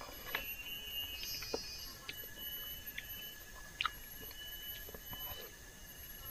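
Eating by hand with the mouth close to the microphone: soft chewing and scattered short mouth clicks and smacks, sharpest a little under four seconds in, over steady high-pitched insect trilling from the surrounding forest.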